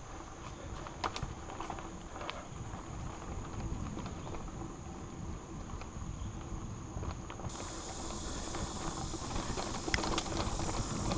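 Mountain bike rolling fast down a dirt singletrack: low rumble of tyres and wind, with sharp clicks and rattles from the bike over bumps. A steady high insect drone runs underneath and broadens into a wider hiss about two-thirds of the way through.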